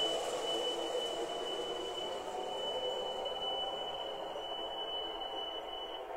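MTH model of a CTA 3200-series subway train running around the track: a steady motor and wheel rumble, with a thin, steady high-pitched tone over it that stops about six seconds in.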